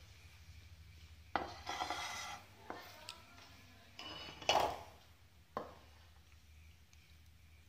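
Ceramic plate being handled: a sharp knock, a brief clatter, then a louder clink with a short ring about four and a half seconds in, and a last knock, over a faint low hum.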